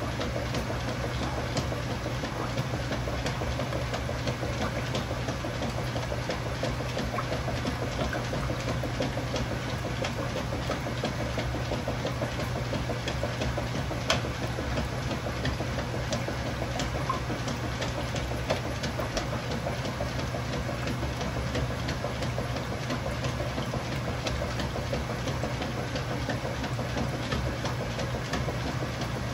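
Kenmore Ultra Fabric Care top-load washing machine running steadily: a constant motor hum with fast, busy mechanical chatter, and a single sharp click about halfway through.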